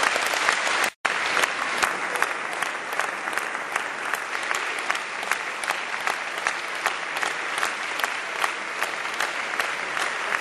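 Audience applause after a saxophone quartet's performance. It cuts out for an instant about a second in, and from about three seconds in the clapping falls into a steady rhythmic beat in unison, roughly two to three claps a second.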